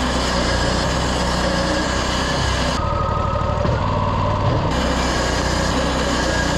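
Wood-Mizer LT40 portable band sawmill running, its engine droning steadily, with abrupt shifts in tone about three seconds in and again near five seconds.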